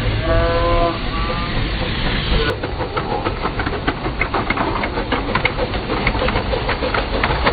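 Miniature steam locomotive passing with a steady steam hiss and a pitched tone that fades out about a second in. After a sudden cut, a miniature model of the streamlined 3801 steam locomotive rolls by, its wheels making quick, irregular clicks over the rail joints.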